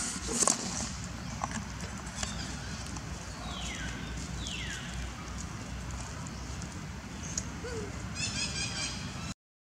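Outdoor ambience over dry leaf litter, with clicks and rustles about half a second in as macaques shift on the leaves. Two short falling whistles come midway, and a rapid repeating chirp starts near the end.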